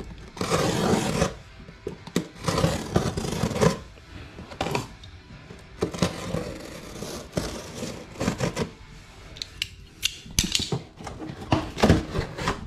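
Cardboard box of a new brake rotor being opened by hand: a run of irregular scrapes, clicks and knocks as the cardboard is cut, pulled and folded open, with the rotor's plastic wrapping handled near the end.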